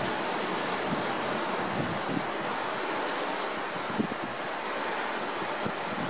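Steady rushing wind-and-water noise, with a few short low gusts of wind buffeting the microphone.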